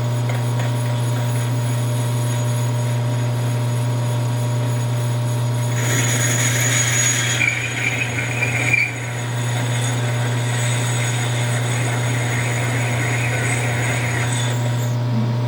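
Hardinge HLV lathe running with a steady hum. From about six seconds in, a parting tool cutting dry into the spinning metal part adds a high, scraping whine that briefly eases near nine seconds and then carries on until shortly before the end.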